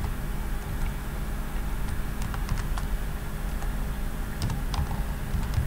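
Computer keyboard typing: scattered single keystrokes, a few at a time, over a steady low hum.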